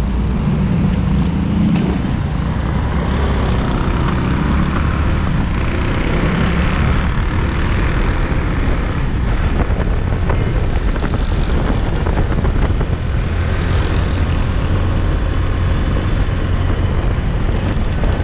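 Steady road traffic noise from trucks and motorcycles on a busy highway, heard from a moving bike, with a heavy low rumble and no single standout event.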